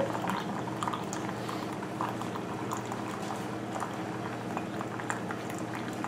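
Keurig single-serve coffee maker brewing a large cup: a steady hum with bubbling and gurgling as hot coffee streams from the spout into a mug.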